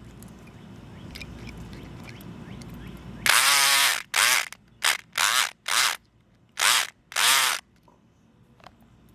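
SouthOrd E500XT electric lock pick buzzing in seven short bursts, starting about three seconds in, as it is triggered on and off to rake the pins of a four-pin Master Lock No. 5 padlock.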